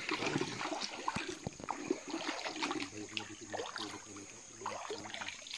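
Shallow water trickling and splashing, with many small sharp clicks and taps throughout.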